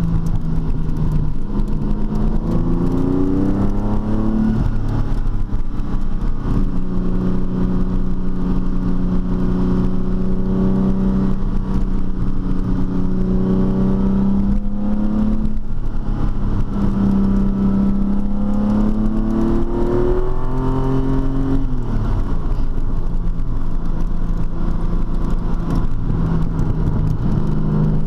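TVR T350's Speed Six straight-six engine running at steady revs. Three times the revs climb and then fall back: about two seconds in, midway through, and about two-thirds of the way through.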